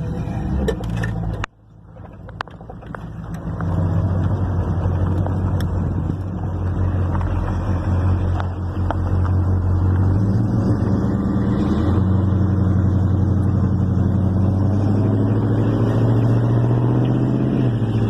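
1969 Plymouth Road Runner's 383 big-block V8 running through its exhaust pipes. The sound cuts off sharply about a second and a half in, builds back up over the next two seconds, then holds a steady low note that rises slightly in pitch near the end.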